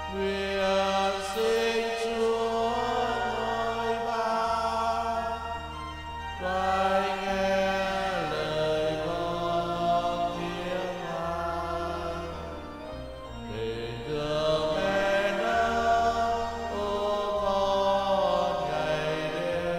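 Slow Catholic hymn to the Holy Spirit sung by a choir over sustained keyboard chords, with long held notes and a low bass that changes every couple of seconds.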